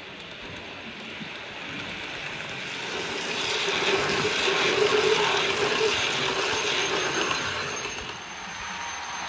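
Bachmann OO gauge Blue Pullman model train running on layout track, its wheels rumbling on the rails and its motor humming. It comes up to the microphone, is loudest about five seconds in as it passes close by, then fades.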